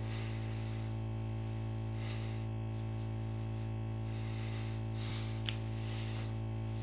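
Low, steady synthesizer drone, with a few faint hissy swells and a single sharp click about five and a half seconds in.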